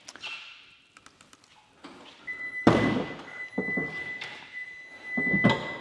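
The hood of a 2022 Ford F-150 Lightning being popped open: a loud thunk about two and a half seconds in and another knock near the end, with a steady high beep sounding through the second half.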